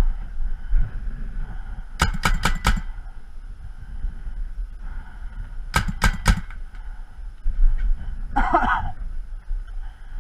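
Paintball markers firing in two quick volleys of sharp pops, about five shots in under a second, then three or four more a few seconds later. A brief shout-like sound comes near the end.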